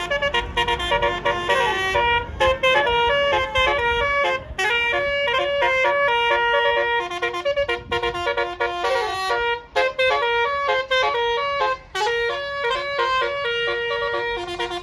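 Bus telolet horn playing a rapid tune of short notes that jump from pitch to pitch, with the bus's low rumble underneath for the first few seconds.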